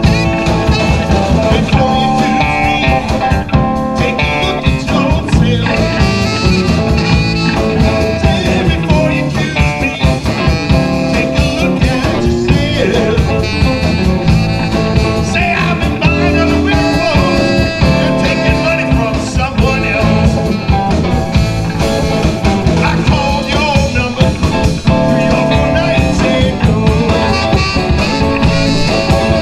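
Live blues band playing a shuffle-style number: electric guitar, drum kit and saxophone over a steady beat.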